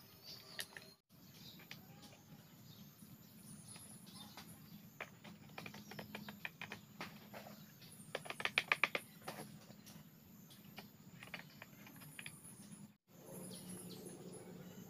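Knife blade tapping and scraping on bamboo poles: scattered light clicks, with a quick run of about eight sharp clicks a little past the middle.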